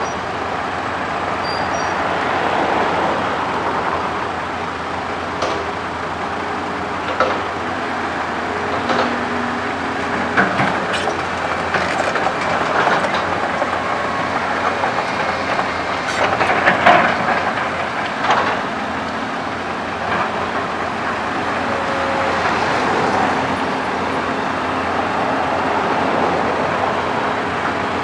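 Cat 320D hydraulic excavator working: its diesel engine runs steadily under load while the bucket digs and dumps earth, with several sharp metallic clanks from the bucket and linkage, the loudest a little past halfway.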